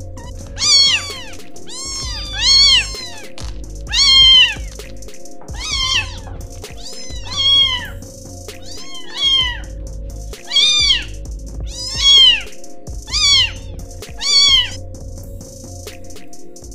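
Young kittens meowing, about a dozen high mews that each rise and fall in pitch, spaced roughly every second and a half, over background music.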